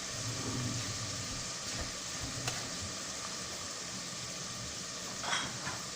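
Chicken pieces frying in a pan with soy sauce just added, a steady sizzle over low heat. A sharp click about halfway through and a short scrape near the end, typical of a spoon stirring the pan.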